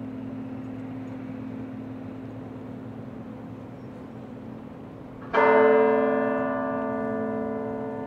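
A large tower bell tolling: a single stroke about five seconds in, its hum and overtones ringing on and slowly fading. Before the stroke, the low hum of the previous toll is still dying away.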